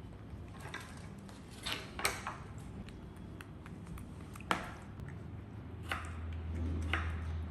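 Kitchen utensils and dishes clinking and tapping during salad making: a handful of sharp, separate clicks spread irregularly over a low background hum that grows a little louder near the end.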